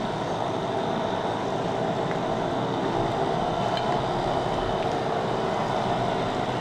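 A fleet of motorized bumper boats running together on a pool: a steady, even motor drone with a faint hum in it.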